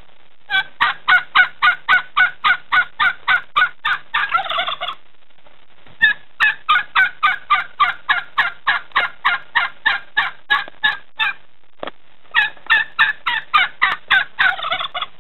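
Domestic turkeys gobbling: three long runs of quick, evenly spaced notes, about five a second. Each run ends in a blurred rattle, with short pauses between them.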